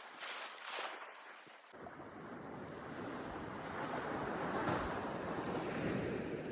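Rushing noise of wind and sea surf. It changes abruptly under two seconds in to a fuller, louder rush, which swells to its peak past the middle.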